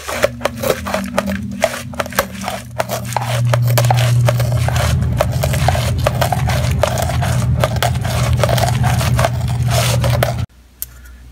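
Scissors snipping and scraping through a thick, gritty tar-based waterproof patch sheet, a long run of quick crunching cuts. A steady low hum runs underneath and stops abruptly near the end.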